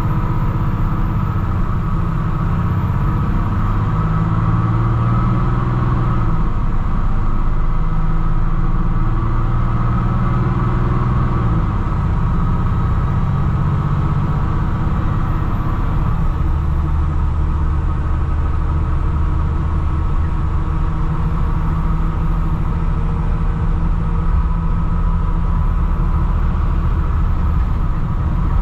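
Mercedes diesel engine of a Thomas HDX school bus running steadily, with its low note dropping to a deeper pitch about sixteen seconds in.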